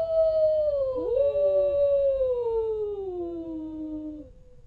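Wolves howling in overlapping long howls. One howl is already sounding and slowly drops in pitch. A second swoops up about a second in and then slides down over the next few seconds, while a fainter, steadier howl joins near the end. The howling dies away just before the end.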